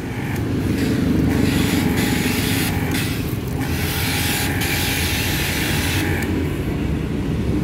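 Dekton DK3001 pressure washer spraying water through a gun fitted with a foam bottle onto a motorbike: a loud hiss in several stretches with short breaks, stopping about six seconds in. A steady low rumble runs beneath it.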